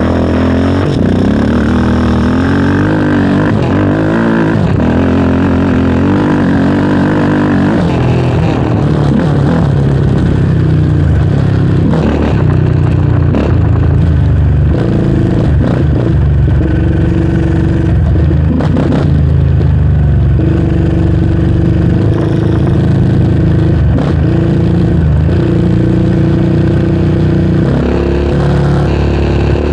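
Yamaha Raptor 700R sport quad's single-cylinder four-stroke engine running under load while riding, revs rising and falling through the first several seconds, then holding fairly steady. A few sharp knocks come through around the middle.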